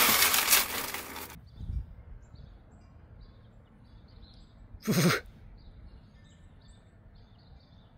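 The tail of intro music fades out, leaving faint bird chirps. About five seconds in comes a single short, loud, breathy chuff: the snuffling greeting sound of tigers.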